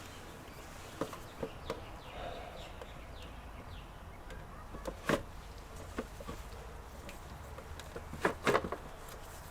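Scattered clicks and knocks of computer parts being handled and fitted back together during reassembly, over a steady low hum. The loudest knock is about five seconds in, followed by a quick cluster of clicks near the end.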